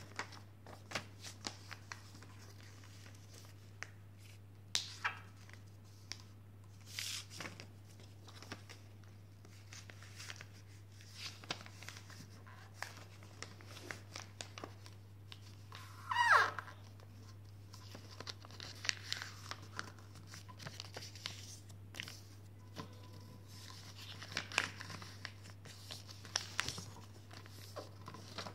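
Sheet of paper being folded and creased by hand: scattered short rustles, crinkles and taps, over a steady low electrical hum. About halfway through there is one brief, louder squeak that falls in pitch.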